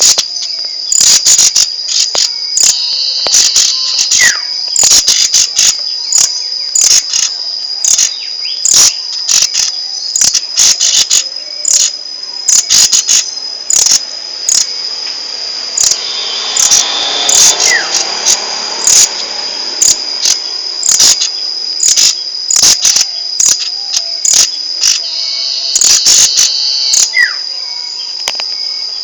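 Rambatan songbird calling repeatedly in loud, sharp, rapid chip notes that come in quick clusters. Under them runs a continuous high-pitched trill.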